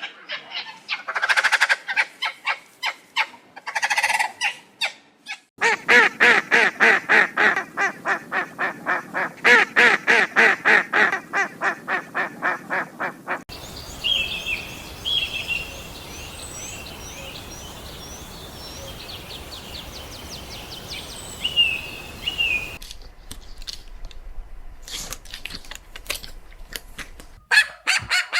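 Birds calling, in several cut-together stretches: a fast run of repeated honking calls, about four a second, then high chirping song over a steady hiss, and more repeated calls near the end.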